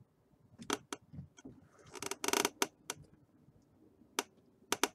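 Computer mouse clicks: a string of sharp single clicks, with a quick cluster of them about two seconds in.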